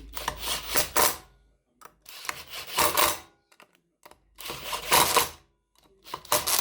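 Ratchet wrench clicking in four short runs, with pauses between them, as the rear sprocket nuts are tightened down to torque.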